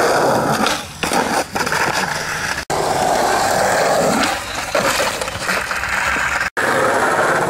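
Skateboard wheels rolling on concrete, a steady loud rumble that cuts off abruptly twice and picks up again.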